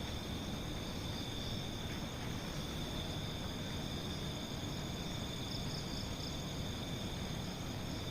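Crickets or similar night insects chirring steadily in one constant high band, over a steady hiss and low rumble from the camera's microphone.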